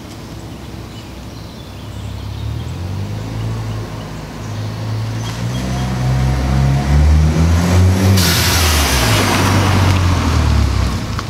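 Mini Cooper S R56 with a turbocharged 1.6-litre four-cylinder and an aftermarket exhaust accelerating past, its engine note rising and getting louder. About eight seconds in, a sudden loud whoosh of air that tails off over a couple of seconds: the aftermarket Dewhel blow-off valve venting as the throttle is lifted.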